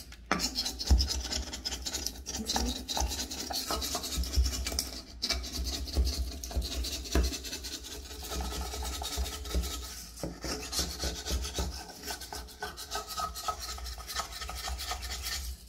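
A hand caulking tool scraping leftover old silicone caulk off shower tile in quick, repeated strokes, smoothing the joint clean before it is recaulked.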